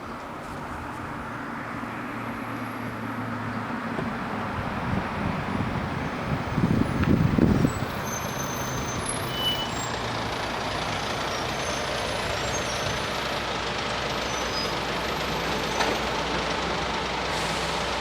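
Road vehicles running at a railway level crossing while the rumble of an approaching diesel train slowly builds. About seven seconds in comes one short, loud burst of heavy-vehicle noise, air-brake-like.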